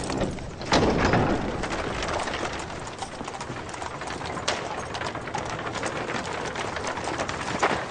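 Horses' hooves clip-clopping on hard ground as mounted riders move off, many close-set hoofbeats, with a heavier, louder sound about a second in.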